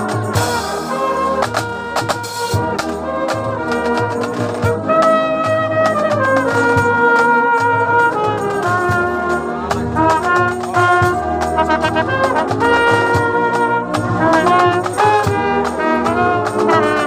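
Marching brass band playing a tune: trumpets and other brass hold sustained melody notes over steady drum beats.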